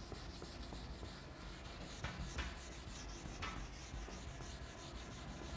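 Whiteboard eraser rubbing across a whiteboard, wiping off marker writing, with four sharper swipes in the middle.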